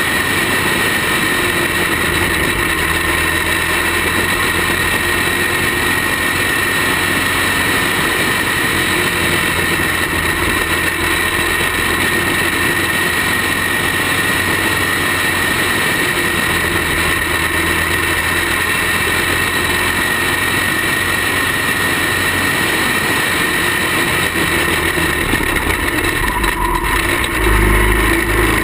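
Racing kart engine heard on board, running steadily at race pace through the lap. Near the end a second kart pulls alongside and a deeper rumble joins in, the loudest part.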